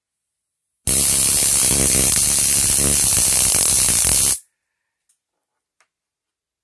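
Homemade battery-powered stun gun's step-up high-voltage module arcing across its output electrodes: a loud, harsh electric buzz that starts and stops sharply, lasting about three and a half seconds.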